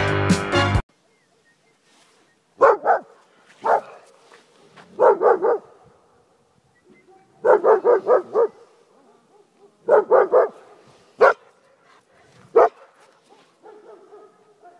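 Music cuts off just under a second in, then a Hungarian shepherd dog barks in short runs of one to five quick barks with pauses between, the last few fainter.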